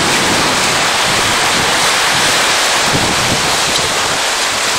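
Sea surf washing steadily against a rocky lava shoreline, with wind buffeting the microphone.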